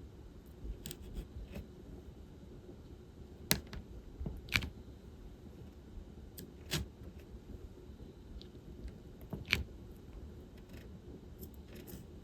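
Diamond-painting work: sparse, irregular small plastic clicks and taps as resin drills are picked up and pressed onto the canvas, a few of them louder, over a faint low hum.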